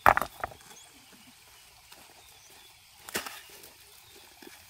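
Knocks of stonework with hand tools: rubble stones and a hoe striking. A quick cluster of sharp knocks comes at the start, and a single knock follows about three seconds in.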